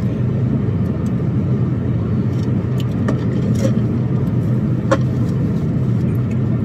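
Steady low rumble of a car's engine and road noise heard inside the cabin while driving, with a single click about five seconds in.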